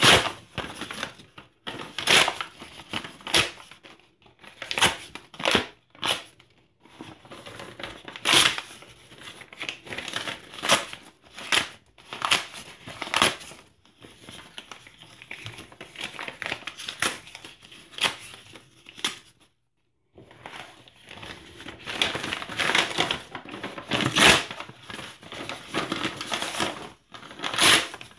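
Close-miked hands rummaging through and crumpling a heap of torn paper scraps (newspaper, receipts, printed flyers), in irregular crackling rustles with a short pause about two-thirds of the way through.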